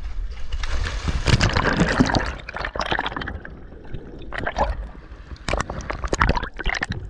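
Seawater splashing and gurgling around a camera as it goes under the surface, with a dense rush of bubbling in the first few seconds, then choppy splashes as it bobs back up at the surface near the end.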